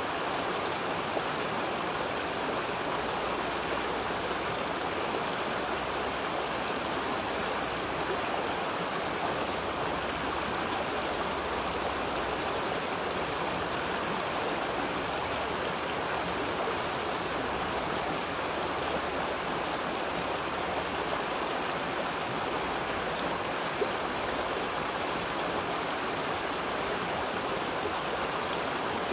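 Flowing water rushing steadily, an even unbroken wash of sound.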